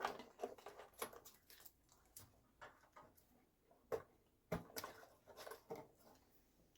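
Faint scattered clicks and rustles of a wire harness being handled and fitted to a pinball machine's lamp panel, with a couple of slightly louder clicks about four seconds in.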